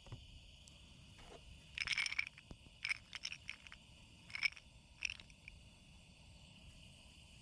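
A handful of short scrapes and clicks over a steady, high insect chirring.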